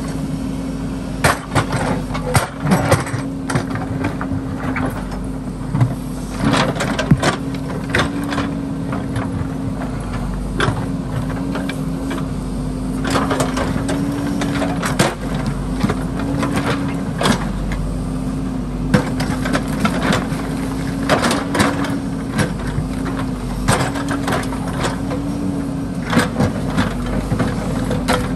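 JCB backhoe loader's diesel engine running steadily, its pitch wavering slightly as the backhoe arm works. Repeated knocks and clanks of the steel bucket on river rocks and gravel.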